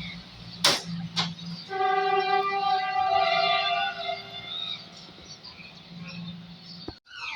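Diesel-electric multiple-unit train sounding its horn, one steady note held for about two seconds, over the low hum of its diesel engine. Two sharp clacks come just before the horn.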